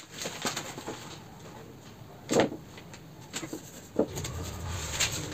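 Handling noises from a plywood shelf board and wood-grain vinyl sticker paper being laid out and pressed on a workbench: a few short knocks and rustles with pauses between, the loudest about two and a half seconds in.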